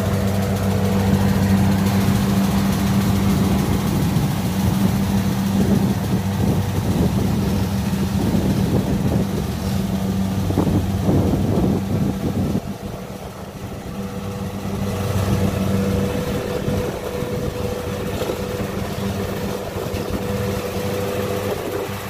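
Kubota DC70 rice combine harvester running steadily as it cuts rice; its diesel engine holds an even pitch. The sound drops a little past halfway, then comes back up.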